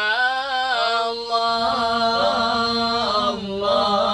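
Men's voices singing an Islamic sholawat a cappella, drawing out long held notes that waver and bend slowly in pitch.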